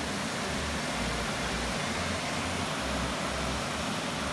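Water rushing steadily over a small river weir: a constant, even hiss, with a low rumble that comes and goes.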